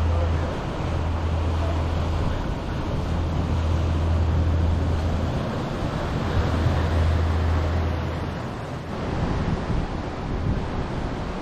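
Ocean surf washing and breaking over rocks along the shore, with wind buffeting the microphone as a low rumble that drops away about eight seconds in.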